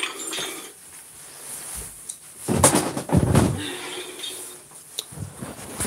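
Handling noise from the camera being moved against clothing: a loud rustle about two and a half seconds in, then a few light knocks near the end.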